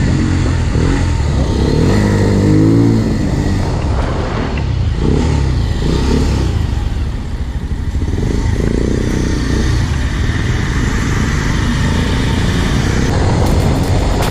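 Motorcycle engine running at speed through a series of curves, its revs rising and falling several times as the throttle is rolled on and off.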